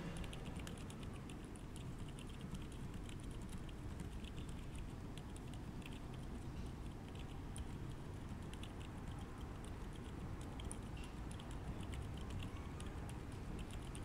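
Continuous typing on a 60% mechanical keyboard fitted with stock 68 g Outemu Silent Forest silent tactile switches, on a deskmat: many quiet keystrokes a second over a steady low background hum.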